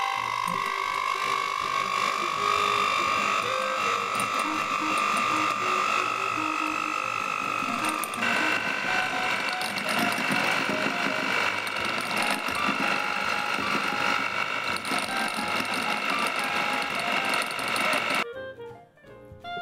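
Electric hand mixer running, its beaters whisking egg yolks and sugar in a glass bowl: a steady motor whine that creeps up in pitch, steps higher about eight seconds in, and stops shortly before the end.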